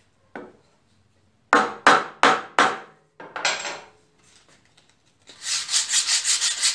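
Pine cross-lap joint handled by hand: four sharp wooden knocks about three a second, a short scrape, then a hand rubbing quickly back and forth over the wood, about seven strokes a second, near the end.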